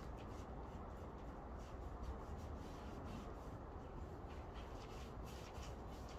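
Paintbrush rubbing wood stain onto an OSB panel in soft, uneven strokes, over a low steady rumble.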